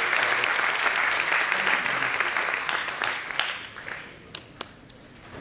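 Audience applauding. The clapping dies away about three to four seconds in, and a few light knocks follow.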